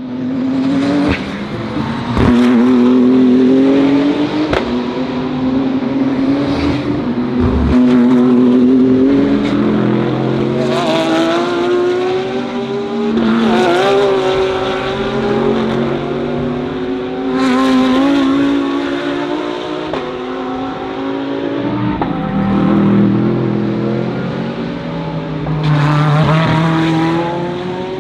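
DTM GT3 race cars at speed, engines rising in pitch and dropping sharply at each upshift as cars pass one after another.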